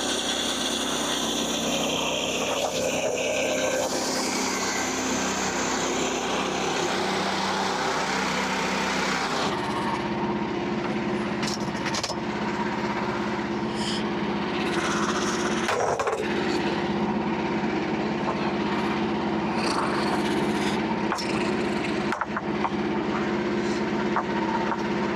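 Portable bandsaw mill's small engine running steadily while sawing wood. About nine seconds in, the sound changes abruptly to a steadier, lower engine note with scattered clicks.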